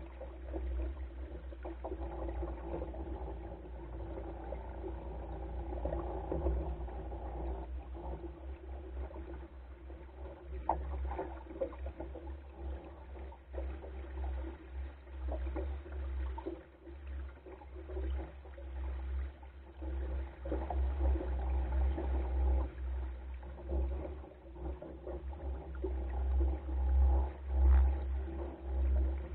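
Water splashing and gurgling along the hull of a small wooden Goat Island Skiff under sail, with wind buffeting the microphone in gusts that grow louder near the end.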